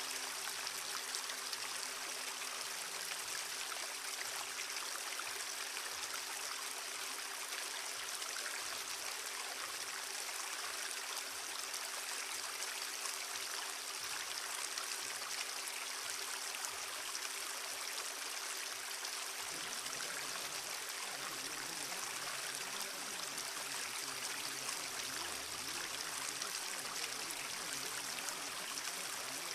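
Steady rushing noise like running water, with two low steady hums underneath; the lower hum stops about twenty seconds in. It is the masking sound bed of a subliminal audio track.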